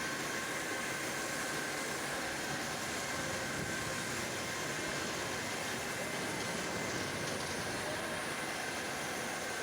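Sawmill machinery running with a steady, even noise and a constant high whine.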